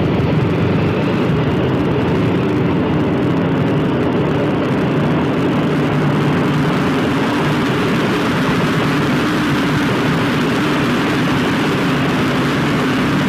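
Motorcycle engine running at a steady cruise, its note holding level throughout, over a constant rush of wind and road noise.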